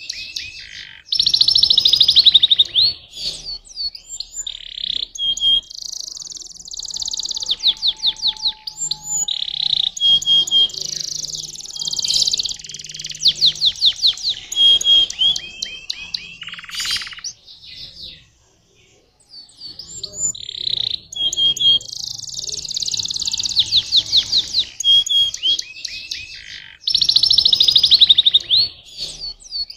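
Domestic canary singing a long, loud song of rapid trills and whistled notes, pausing briefly a little past halfway before starting again.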